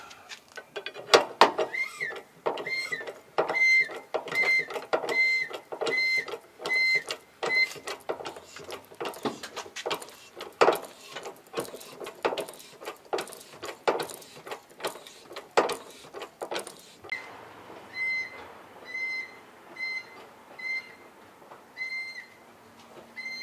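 Hydraulic cab-tilt hand pump of a KamAZ-43118 being worked with a lever bar: a run of sharp clicks and knocks that stops about 17 seconds in, as the cab is raised. A short high chirp or beep repeats about once a second throughout.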